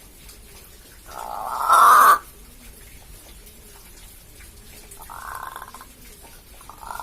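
Crow giving strange calls: a loud one about a second in that swells for about a second and cuts off, and a shorter, quieter one about five seconds in.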